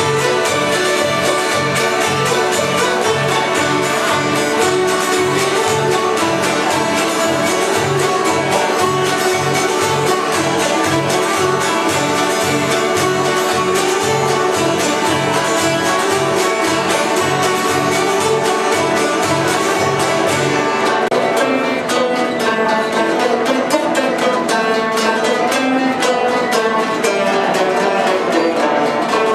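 Instrumental background music with a steady low beat. The beat drops out about two-thirds of the way through while the music continues.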